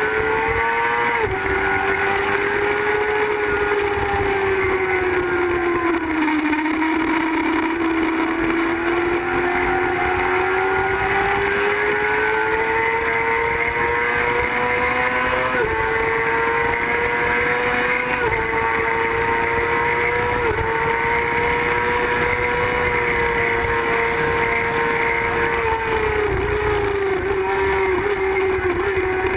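Sport bike engine at high revs, pulling hard through the gears: the pitch drops about a second in, sags, then climbs steadily, with sudden drops at upshifts in the middle, and falls in small steps near the end as it is shifted down. Heavy wind rush over the camera mounted on the bike.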